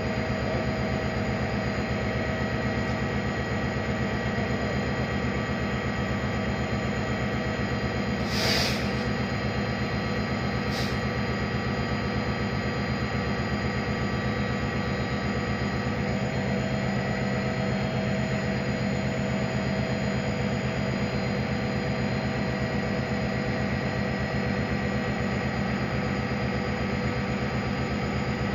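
EMD GT36HCW diesel locomotive idling with a steady engine hum and several held tones. A short hiss comes about eight seconds in, and a briefer, higher one about three seconds later.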